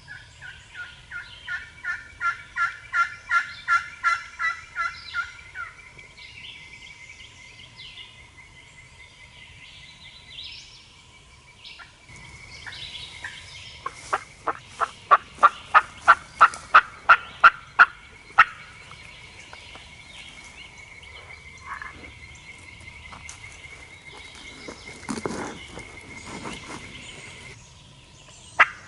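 Turkey yelping in long, evenly spaced runs of about three yelps a second, each run swelling louder and then fading; a second run follows after a pause, and a third begins at the end. A faint steady high hum sits underneath.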